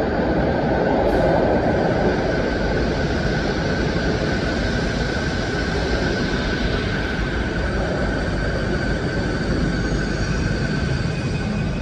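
Electric passenger train pulling slowly into an underground station platform: steady running noise with a thin high whine held throughout.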